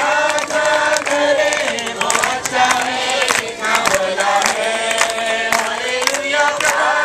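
A congregation singing a Hindi worship song together, led by a man's voice, over a steady rhythmic beat of sharp percussive strikes.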